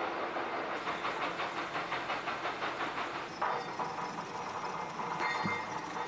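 Factory machinery running, a steady mechanical din with a fast, regular clatter for the first few seconds; the sound shifts in character partway through.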